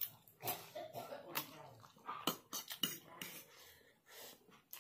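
Close-up eating sounds of noodles being slurped and chewed, with irregular sharp clicks of a fork against a plate.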